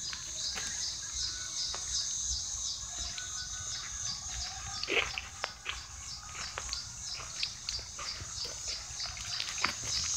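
Rapid, evenly repeated high-pitched chirping that keeps up without a break, with scattered crunching footsteps on a gravel path.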